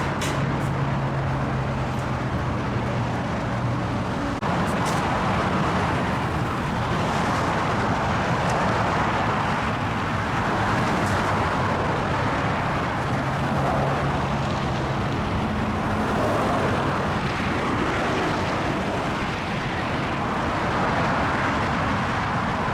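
Steady road traffic: cars passing with tyre noise swelling and fading every few seconds, and a low engine hum from a heavier vehicle at times.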